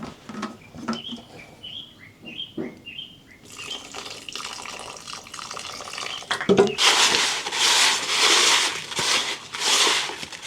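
Water rushing and splashing: a softer hiss for a few seconds, then a loud rush that pulses about twice a second for the last three seconds, with a few faint chirps before it.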